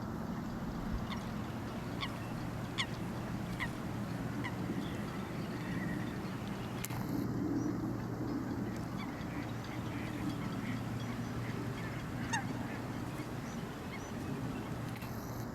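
Waterfowl calling across the water: a run of short, falling calls about one a second in the first few seconds, then fainter scattered calls, over steady wind noise.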